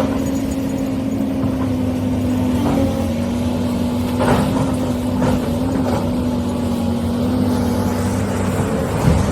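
Motors of a Huina 1593 RC excavator whining steadily, with small shifts in pitch as it works, and a few sharp knocks along the way.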